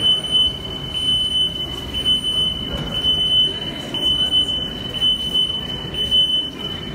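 High electronic signal tone sounding on a metro platform beside a train standing with its doors open: a steady beep broken by a short gap about once a second, over a low platform rumble.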